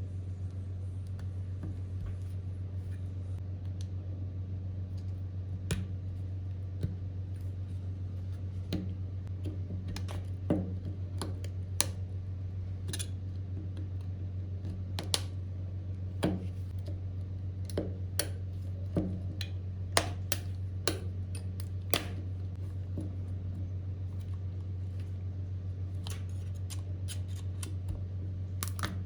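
Irregular sharp clicks and taps of small repair tools on an AirPods Pro charging case, over a steady low hum.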